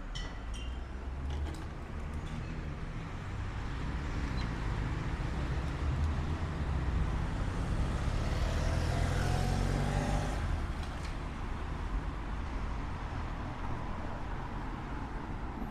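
Street traffic: a motor vehicle's engine draws near, is loudest about nine to ten seconds in, then falls away quickly as it passes.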